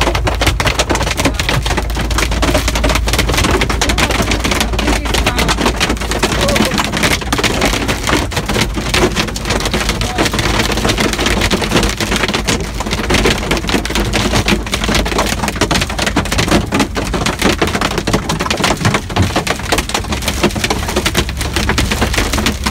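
Hail and rain hitting the truck cab's windshield and roof in a loud, continuous, rapid clatter. A steady low rumble from the moving truck runs underneath.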